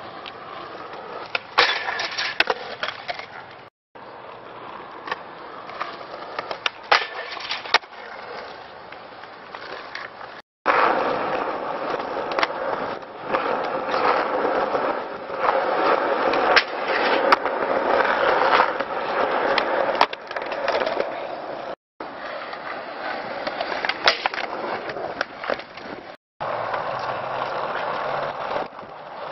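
Skateboard wheels rolling on rough asphalt with a steady rumble, broken by sharp clacks of boards popping and landing. The sound drops out briefly four times.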